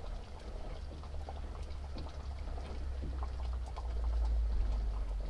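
Wooden spoon stirring thick soup in a stainless steel saucepan, with small scrapes and clicks against the pan as the soup simmers. A steady low rumble runs underneath and grows louder towards the end.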